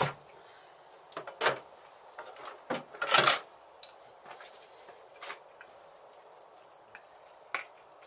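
A handful of sharp metal knocks and clatters as a stripped motorcycle fork leg is handled and shifted in a parts box. The loudest is a short noisy clatter about three seconds in.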